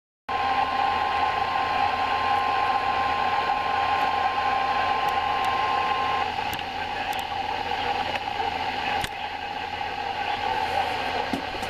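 A steady single warning tone near 1 kHz, typical of the NOAA Weather Radio 1050 Hz alert tone, sounds for about six seconds through hissing radio static and then stops. The static goes on afterwards, with a few faint clicks.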